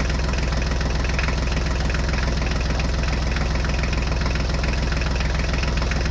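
Tractor engine idling sound, steady and even, with a fast regular knock.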